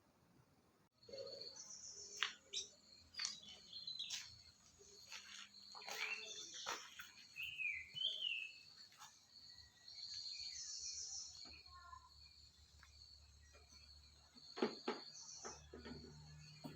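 Birds chirping and calling, starting suddenly about a second in, with a few sharp clicks among the calls. A low steady hum comes up near the end.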